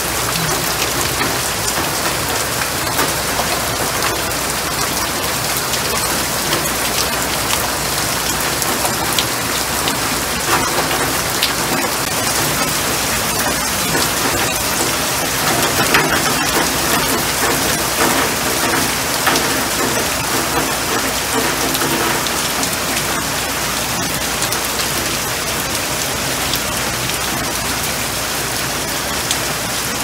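Steady rain falling, drops splashing into puddles on pavement and onto leaves.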